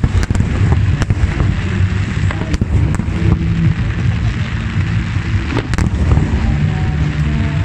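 Aerial fireworks firing and bursting in quick succession: a dense low rumble of launches and explosions, with sharp cracks scattered throughout.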